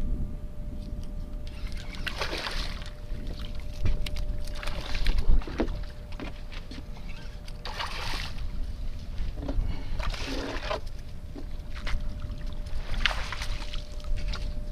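A hooked redfish splashing at the surface while being fought on rod and line. There are about five short splashes a couple of seconds apart, over a steady low wind rumble on the microphone.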